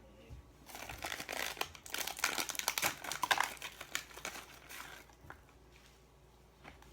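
Crinkling and crumpling of thin material being handled, a dense crackling lasting about four seconds, then a single faint click near the end.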